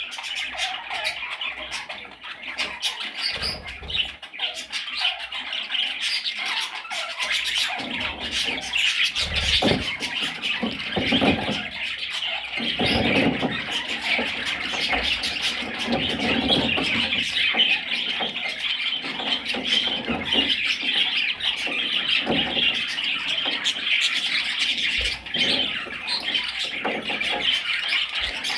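A flock of budgerigars chattering and squawking without pause, a dense mix of warbles and sharp calls.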